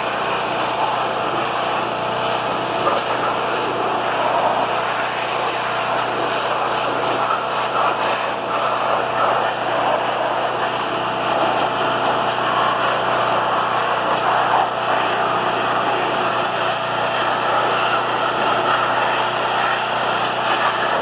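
Pressure washer running steadily, spraying the caked dirt off a pickup's frame.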